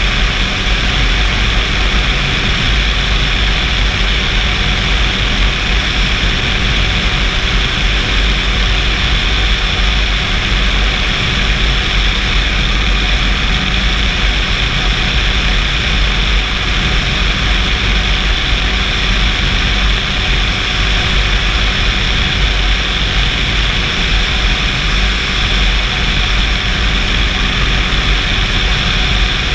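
Flex-wing microlight trike's engine and propeller running steadily at cruise power in flight, a constant drone mixed with wind rush on the open cockpit.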